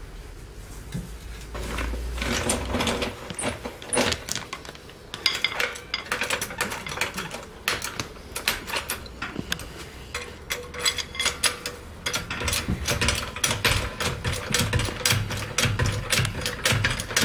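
Hydraulic trolley jack being pumped by its handle: a long run of quick metallic clicks and rattles, thickening about five seconds in, with low thuds at each stroke near the end.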